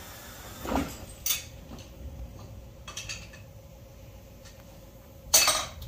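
A few scattered knocks and clinks over a low background. The loudest comes near the end, with another about a second in.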